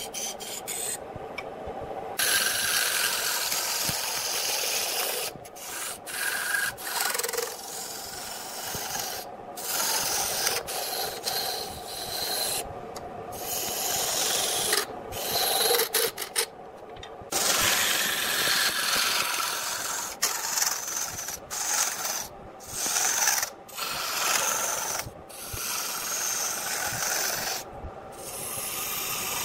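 A turning tool cuts a spinning wooden blank on a wood lathe: a continuous scraping hiss as shavings peel off. It drops out briefly several times when the tool eases off the wood.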